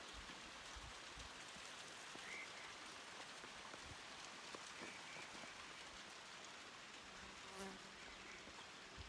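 Faint outdoor quiet with a steady hiss and a few faint high chirps. About three-quarters of the way through, a flying insect buzzes briefly close by.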